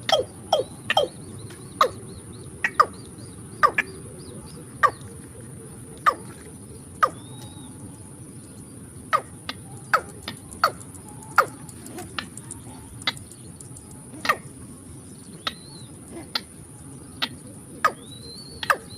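A bird calling over and over in short sharp notes, each a quick falling sweep, about one every second or so, over a steady high whine of insects.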